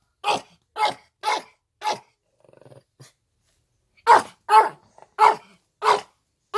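Yorkshire terrier barking sharply over and over, in two runs of four and five barks about half a second apart, with a short quiet growl in the pause between them.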